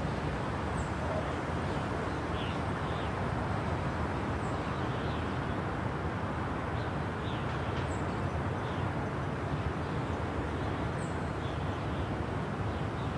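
Steady low rumble of distant city traffic, with faint short high chirps scattered through it.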